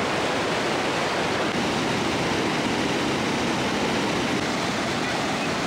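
River rapids: a wide sheet of water pouring over a flat rock slab and churning into whitewater, a steady rushing sound.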